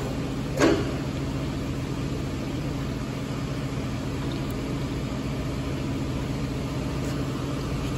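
Kingston HD-2690 metal lathe running steadily, its headstock gearing humming evenly with the speed selector set to 800 rpm in high range. A single sharp clack about half a second in as the speed selector lever is worked.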